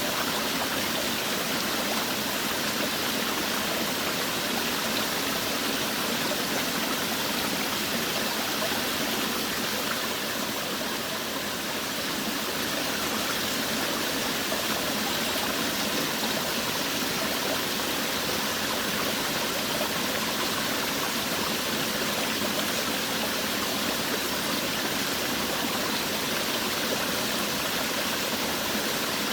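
Small forest waterfall: water falling and splashing over rocks in a steady, even rush.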